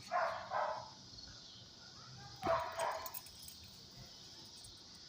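Dog barking: two quick pairs of barks, one right at the start and another about two and a half seconds in.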